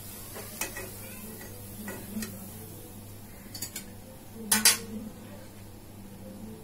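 Metal utensils clinking on steel kitchenware: a few light taps, then a louder double clatter about four and a half seconds in as a metal spatula is laid down on a steel plate.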